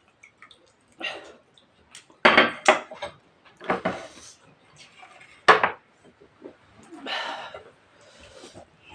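Close-up eating of rice and mutton curry: a string of loud, irregular mouth sounds with sharp clicks of a plate or utensil among them.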